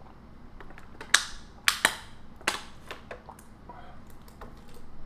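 A drink container being handled and opened: a run of sharp plastic clicks and snaps, four loud ones close together in the first half, then a few lighter clicks.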